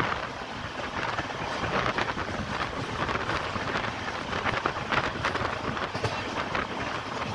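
Train running at speed, heard from on board: steady rumble and clatter of wheels on the rails, with wind noise on the microphone.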